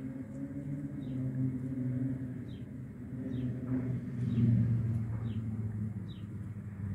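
An engine running steadily, its low drone growing louder about four and a half seconds in, with a bird giving short high falling chirps about once a second.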